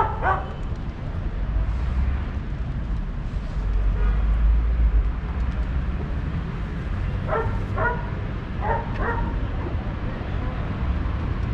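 A dog barking in short sharp barks: a quick double bark at the start, then four more in two pairs about seven to nine seconds in, over a steady low rumble of street traffic.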